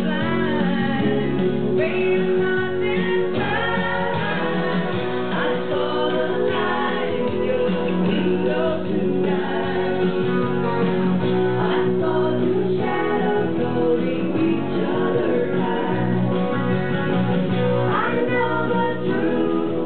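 A woman singing into a microphone over amplified backing music with guitar.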